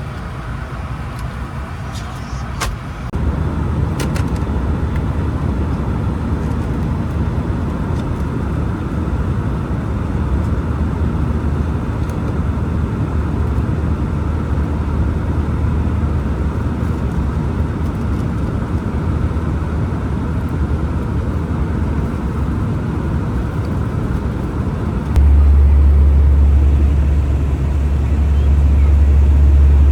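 A car driving, with steady low road and engine rumble that gets louder about three seconds in and again near the end.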